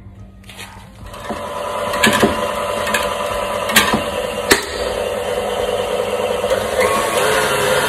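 KitchenAid stand mixer with a wire whisk starting up about a second in and running steadily, whipping an egg-yolk mixture, with a few sharp clicks along the way. Near the end its pitch rises as it goes to a higher speed.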